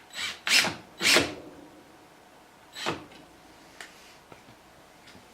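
Short handling noises: three quick scrapes or knocks within the first second or so and one more near three seconds in, then only faint small ticks.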